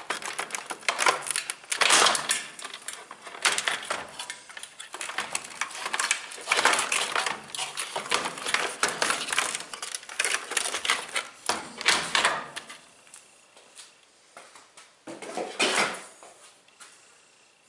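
Rapid clicking, clattering and scraping of plastic and metal washing-machine parts being handled and prised apart by hand. It goes quieter about two-thirds of the way in, with one more burst of clatter near the end.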